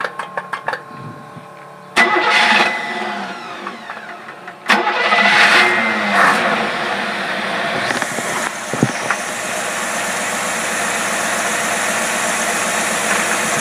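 An engine fed by a Carter AFB carburetor starting up. It catches suddenly about two seconds in, surges again near five seconds, then settles into steady running. The fuel is shutting off properly with no flooding, so the float thought to be sunk is holding.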